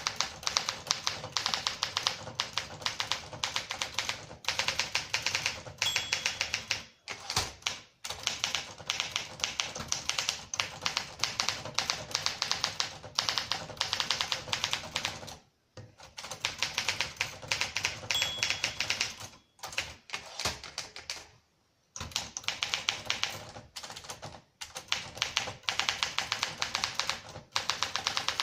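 A 1964 Olympia SM9 manual portable typewriter being typed on: fast runs of key strikes, broken several times by short pauses, with a brief ringing tone twice.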